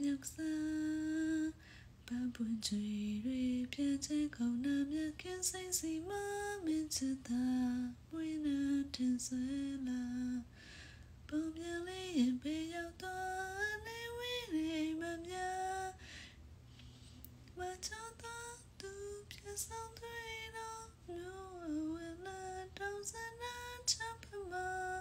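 A woman singing softly, a slow melody in drawn-out phrases with pitch glides and short pauses between lines.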